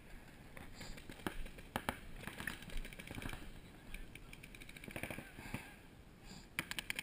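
Paintball markers firing: scattered pops and quick strings of shots, ending in a fast burst of several shots near the end.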